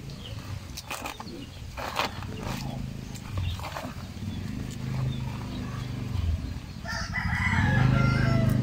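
A rooster crowing once near the end, over a low steady hum.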